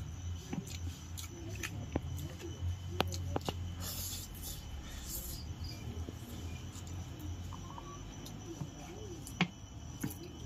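Close-up eating sounds: spicy Korean ramen noodles being slurped and chewed, with short slurps and small clicks and smacks over a low steady hum.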